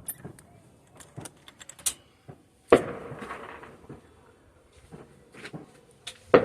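Scattered New Year's fireworks going off: small pops and crackles, then a sharp bang with a trailing echo about three seconds in and another bang just before the end.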